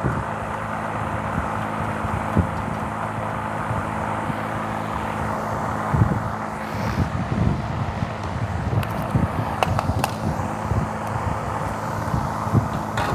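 A steady mechanical hum, like a motor or engine running, with a few light clicks and knocks near the end.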